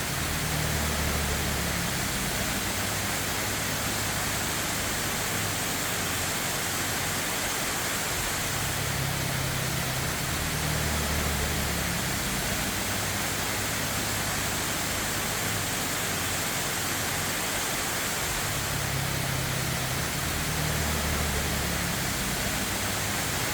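Waterfall: a steady rush of falling water with no break.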